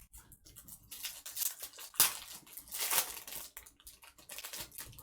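Trading cards and plastic card sleeves being handled: a run of quick rustling and sliding scrapes, with a sharp click about two seconds in.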